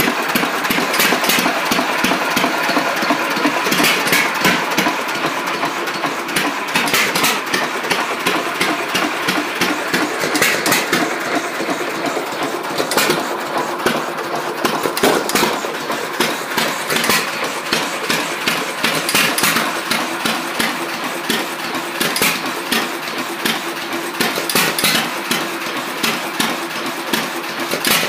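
John Deere 1.5 hp single-cylinder hit-and-miss engine running. Stronger firing beats come at irregular gaps of a second or a few, with quick mechanical clicking in between as it coasts.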